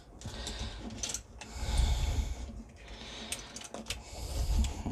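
A person breathing close to the microphone, a few long breaths, the loudest about two seconds in and near the end, with a few small clicks of hard plastic action-figure parts being handled and pressed together.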